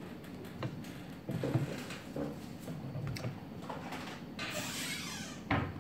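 Eating by hand: chewing and mouth sounds, with fingers working grilled chicken and rice in a takeout box, small clicks and scrapes. A short rustle comes near the end, followed by a sharper knock.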